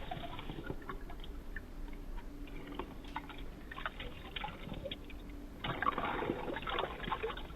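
Water being poured over small toy figures in a toy pool, trickling and splashing, heavier from about six seconds in.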